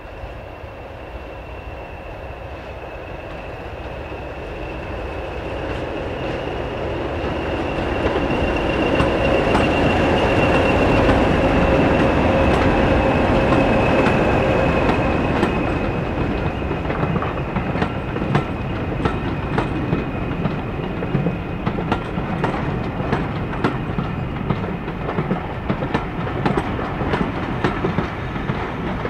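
Diesel-hauled train approaching and passing, its engine note with a steady high whine growing louder to a peak about ten to fifteen seconds in. The wheels then click-clack over the rail joints as the coaches roll by.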